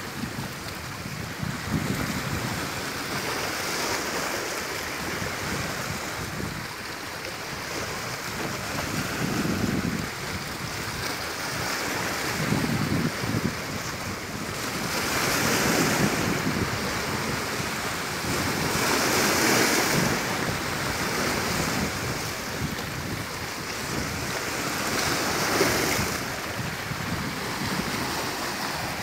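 Sea waves washing onto the shore, swelling and fading, with the hiss of surf breaking a few times and some wind on the microphone.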